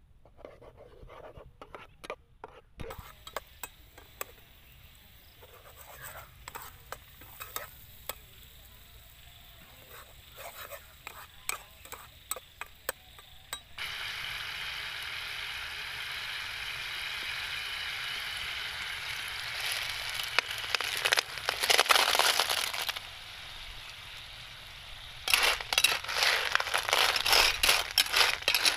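A metal spatula scrapes and clinks faintly in a frying pan of tamarind sauce. About 14 seconds in, a steady sizzle of the sauce boiling starts. Near the end it turns to a loud, dense clatter of blood clam shells knocking together as they are stirred in the pan.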